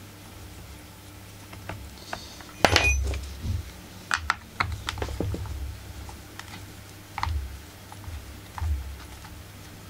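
Irregular small clicks, taps and knocks of a screwdriver and hands working the screws of a chainsaw's recoil starter cover, with the loudest knock about three seconds in.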